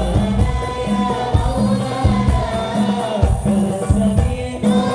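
Islamic sholawat song performed by a hadrah group: male voices singing a melody into microphones over a steady, repeating beat of frame drums.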